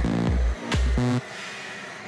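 Background electronic dance music with a heavy bass beat that drops to a quieter stretch a little past halfway.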